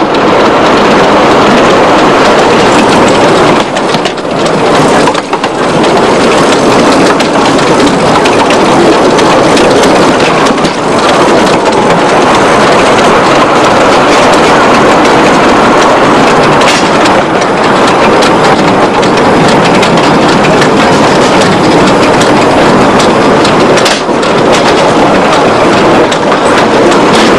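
Small narrow-gauge locomotive running along the track, heard loud and close from on board: a steady, unbroken running noise.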